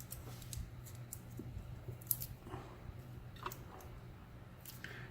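Faint, scattered clicks and taps of small metal lock parts and tools being handled, over a steady low hum.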